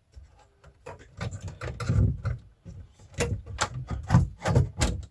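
Irregular clicks and knocks of parts and a connector being handled and pushed into place inside the spectrum analyser's case.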